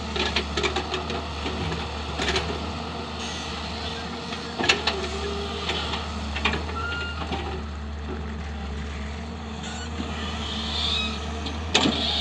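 Excavator's diesel engine running steadily, with scattered sharp metal clanks and knocks from the machine at work; the loudest come about halfway through and near the end.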